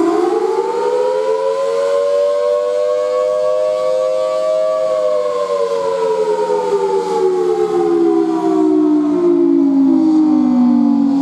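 Federal Signal Thunderbolt 1003 outdoor warning siren giving a short blast: its pitch keeps climbing to a peak about four to five seconds in, then winds steadily down as the rotor coasts after the siren is cut off.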